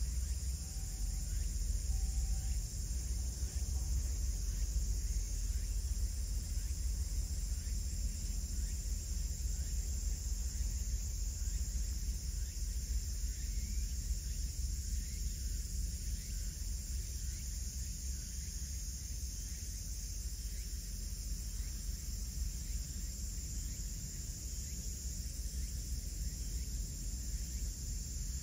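Steady high-pitched chorus of insects, with a constant low rumble underneath.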